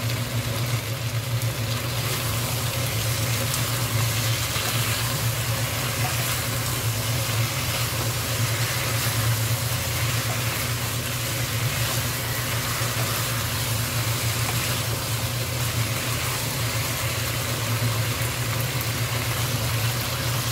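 Dakgalbi (chicken and vegetables in chili-paste sauce) sizzling in a wok over high heat, an even hiss over a steady low hum.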